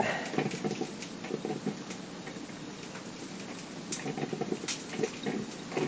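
Frying pan crackling as it heats up: a steady patter of small pops and sizzle, a little livelier near the end.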